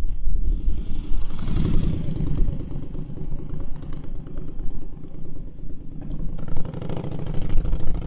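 A vehicle engine running close by, its sound swelling and easing twice over several seconds, with wind rumbling on the microphone.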